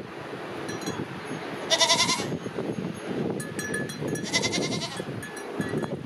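Peacock goat bleating twice, two short quavering bleats about two and a half seconds apart, over a steady low background noise.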